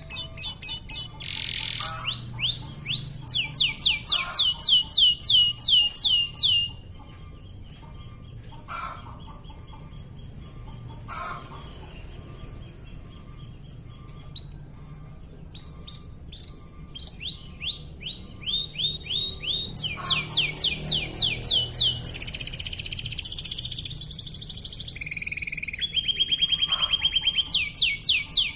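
Domestic canary singing: rapid trills of quickly repeated sweeping notes, phrase after phrase, with a quieter pause of several seconds after the first burst, then faster runs and a buzzy rolling trill near the end.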